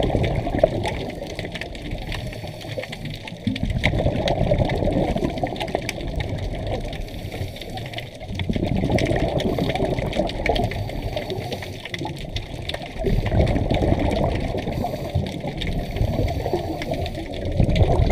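Scuba diver breathing through a regulator underwater, the exhaled bubbles rushing and gurgling in surges about every four to five seconds with quieter spells between, heard through an underwater camera housing.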